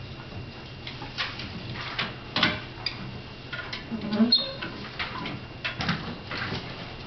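Paper sheets rustling as survey forms are handed in, with footsteps on carpet and scattered knocks and thumps, the loudest a little over halfway through.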